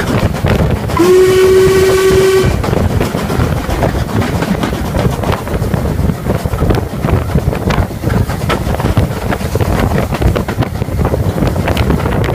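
Steam whistle of LMS Ivatt Class 4MT 2-6-0 No. 43106 sounding one short note about a second in, lasting about a second and a half and sliding up slightly as it opens, over the steady rumble and clatter of the moving train.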